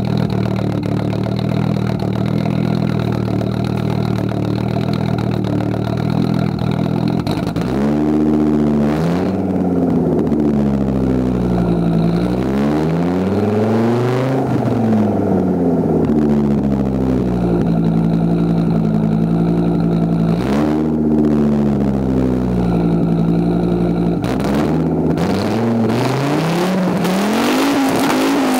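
Audi 80 B3 coupe's 2.2-litre turbocharged five-cylinder engine heard at the tailpipe of its 2.5-inch exhaust. It idles steadily for about seven seconds, then is revved again and again, the note rising and falling, with a few sharp pops among the revs. Near the end it is held at higher revs.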